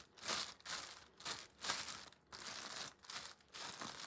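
Thin plastic bag crinkling and rustling in irregular bursts as hands knead and squeeze soft dough inside it.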